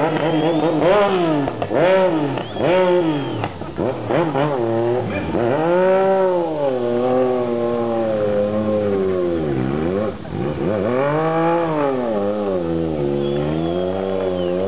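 Stunt motorcycle engine revving hard and repeatedly while being ridden. There are quick short blips of the throttle in the first few seconds, then slower, longer swells that rise and fall in pitch.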